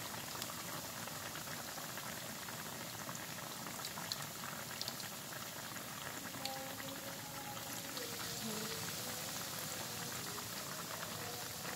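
Battered banana fritters deep-frying in hot oil in a wok: a steady sizzling hiss with small crackles.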